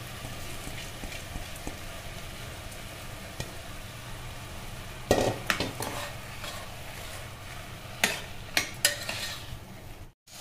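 Soaked rice and vegetables sizzling in oil in an aluminium pressure cooker while a metal spoon stirs them, with a few sharp knocks and scrapes of the spoon against the pot about five and eight seconds in.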